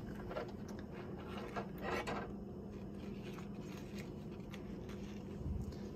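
Rubber-gloved hands rummaging in the metal tank of an ultrasonic cleaner, lifting out small sewing-machine parts: light clicks and rubbing, with a brief scuffle about two seconds in, over a low steady hum.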